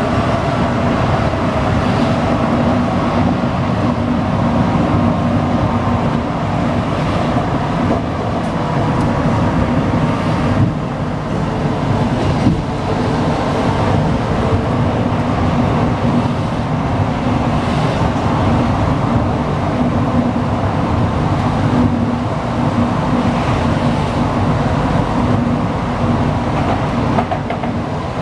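Running noise inside an Alstom NS-93 rubber-tyred metro train in motion: a steady rumble with a constant hum underneath.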